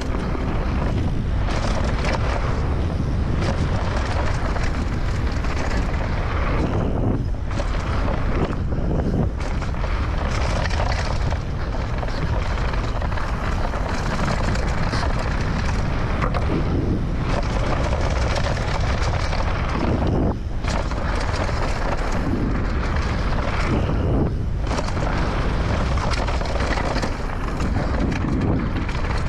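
Mountain bike descending a dirt downhill trail at speed: a steady rush of wind on the microphone mixed with the rumble and rattle of knobby tyres, chain and suspension over dirt, wooden boardwalk planks and leaves, with a few brief lulls.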